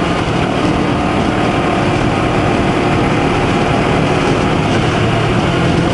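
2020 Honda CBR250RR's 250 cc parallel-twin engine running under way at fairly steady revs.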